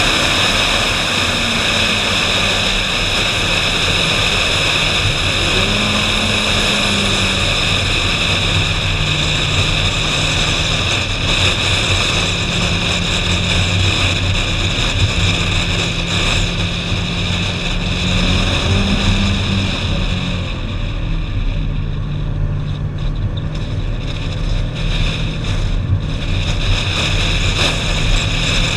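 Ferrari 458 Spider's V8 engine running as the car drives, with heavy wind rushing over an exterior-mounted microphone. The engine note steps up and down in pitch several times and rises near the end, and the wind hiss thins out for a few seconds past the middle.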